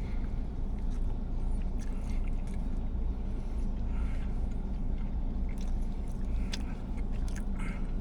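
Steady low rumble of a car interior with the engine idling, with scattered faint clicks and crinkles from handling food and wrapper.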